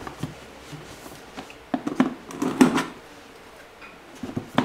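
Plastic seals being peeled off the sides of a cardboard product box by hand: two short rustling rips in the middle, with small clicks and taps at the start and near the end.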